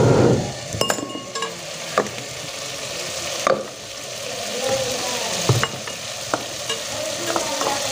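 Onion-tomato masala gravy frying and sizzling in an aluminium pot over a wood fire, a steady hiss broken by scattered sharp pops and crackles.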